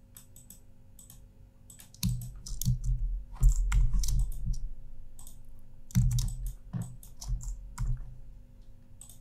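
Quick, irregular clicks of a computer mouse as pen-tool anchor points are placed. Dull knocks come in two clusters, about two seconds in and again about six seconds in, and they are the loudest part.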